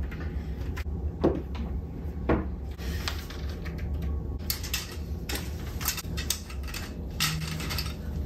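Painted cabinet doors being handled and stood on end, knocking twice against the floor and wall, followed by scattered clicks and rustling of the canvas drop cloth.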